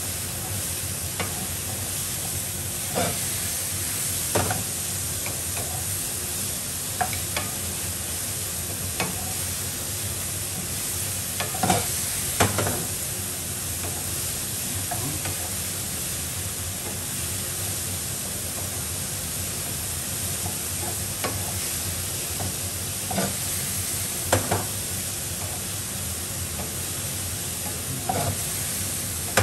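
Mushrooms sizzling steadily in a frying pan, with a wooden spatula knocking and scraping against the pan every few seconds as they are stirred.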